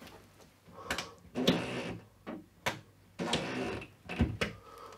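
A series of short scrapes and sharp knocks from hand tools and the metal TV wall-bracket plate being handled.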